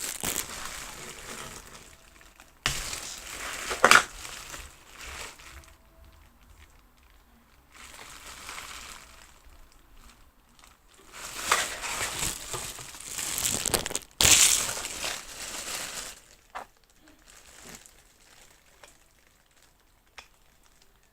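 Plastic packaging of a Popin' Cookin' DIY candy kit crinkling and crunching as it is handled, in several bursts with quieter pauses between, the longest burst in the second half.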